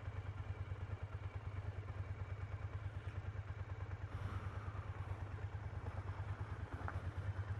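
Sport motorcycle engine running steadily, an even low pulsing of its firing strokes.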